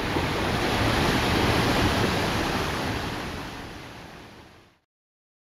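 Fast, turbulent river water rushing over rocks, a steady noise that fades out over the last couple of seconds into silence.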